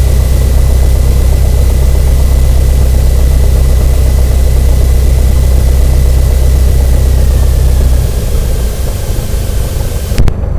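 Cessna 172N's Lycoming O-320 four-cylinder engine idling, heard from the cockpit, then stopping about eight seconds in at shutdown, with the mixture pulled to cutoff. A thin high whine sags in pitch as it winds down, and a sharp click comes near the end.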